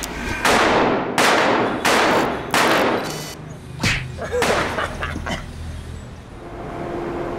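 Four pistol shots about 0.7 s apart, each ringing on in the hard-walled range, followed by a burst of quicker sharp hits and a held tone from the title sting.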